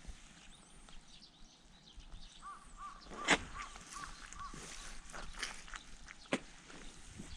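A bird calling a quick series of about six short repeated notes, with faint chirps of other birds behind it. Two sharp knocks or thuds cut through, one a little past the middle and one near the end.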